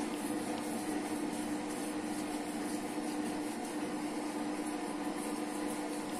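Washing machine running: a steady hum with one constant tone under it.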